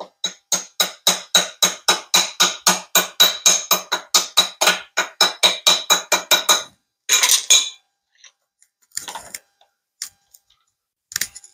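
Hand ratchet wrench clicking steadily, about four clicks a second for some six seconds, as a bolt on the TH400 transmission, its center support bolt, is backed out. Then a short metallic scrape and a few light clinks.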